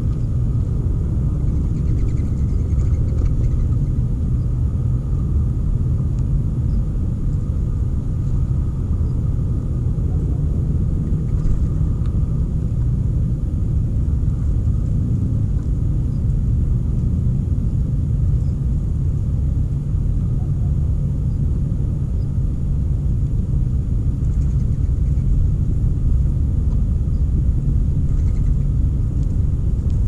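Steady, loud low rumble with no breaks, over a faint thin steady tone.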